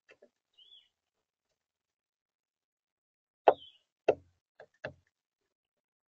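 Red-bellied woodpecker's bill knocking on a plastic seed feeder tray while it pecks at the seed: four sharp knocks in under two seconds, the first two loudest. A faint short high chirp comes under a second in.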